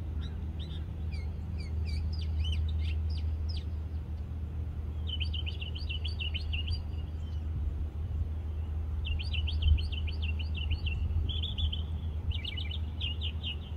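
Small birds chirping in quick runs of short high notes, in several bouts with short pauses between them, over a steady low rumble. There is one brief low bump about ten seconds in.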